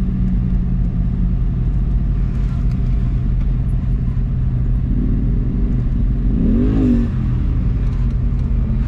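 Engine of an off-road vehicle running steadily as it drives slowly over desert sand, heard from inside the cabin, with a short rev about two-thirds of the way through.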